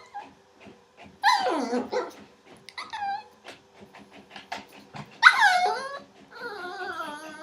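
A 4½-month-old Yorkshire terrier puppy making funny noises: a string of pitched calls, two of them sliding down in pitch about a second in and just after five seconds, a short one near three seconds, and a longer wavering one near the end.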